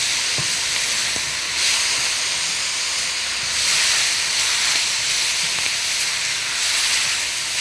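Spinach and artichoke hearts sizzling in oil in a hot wok as they are stirred with a silicone spatula: a steady hiss that swells briefly a few times.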